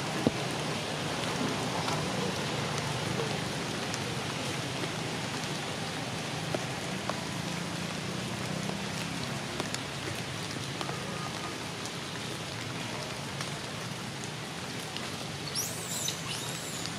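Steady hiss of rain pattering on forest leaves, with scattered faint drips. Near the end come a few faint high-pitched calls.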